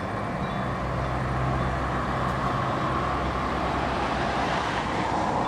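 Steady low engine hum and road noise, with the rushing sound of an approaching train swelling near the end.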